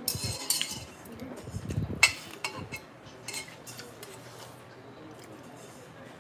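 Eating utensils clinking against a dish of cold noodles, with a few clinks in the first second and a sharp, loudest clink about two seconds in, then quieter.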